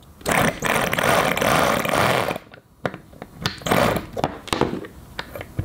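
Handheld electric starter motor spinning a Toyan 2.4 cc miniature Wankel rotary engine: one run of about two seconds, then a few shorter bursts and clicks. The engine is being cranked without staying running, as it needs more fuel.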